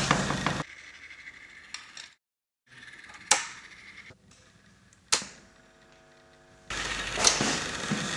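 An instrument cable jack being plugged into an electric guitar that is connected to a live amplifier. There are a few sharp pops with short ringing tails, with near-silent gaps between them, and a buzzing hum after the last pop. About six and a half seconds in, a loud noisy hiss from the amp sets in.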